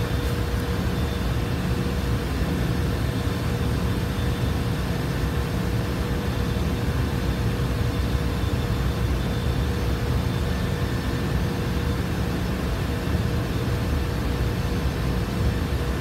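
Steady machinery drone, a low rumble with a faint constant hum-tone, unchanging throughout.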